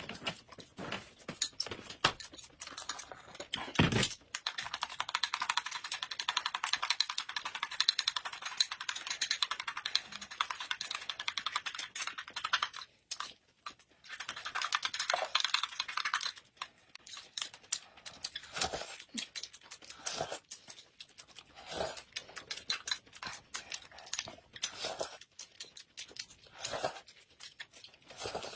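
Close-up eating sounds: chewing and mouth noises on dumplings and a spooned sweet drink, made of many small wet clicks. About three seconds in a dense crackling stretch starts and runs for around ten seconds, with a shorter one around fourteen seconds.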